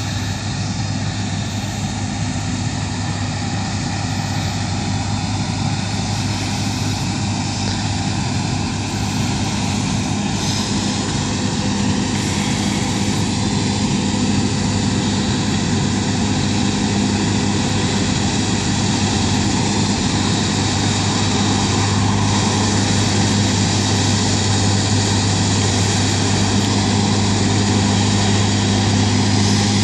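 John Deere S680i combine harvester running while harvesting wheat: a steady diesel engine drone with a deep hum, slowly growing louder as the machine comes closer.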